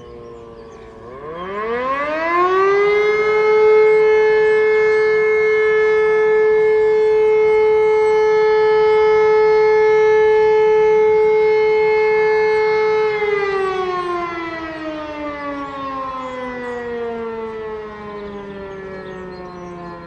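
E57 electromechanical motor siren sounding one sustained tone of the fire-alarm signal. Its falling pitch dies away at the start, then about a second in it spins up to a steady, loud wail. It holds that wail for about ten seconds, then winds down with a long falling pitch.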